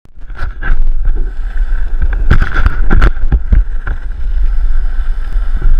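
Longboard wheels rolling fast down an asphalt road: a steady low rumble with wind on the microphone and a series of sharp knocks, the loudest between about two and four seconds in.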